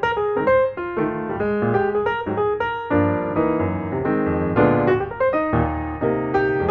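Background music led by piano, quick melodic notes with fuller held chords from about halfway through.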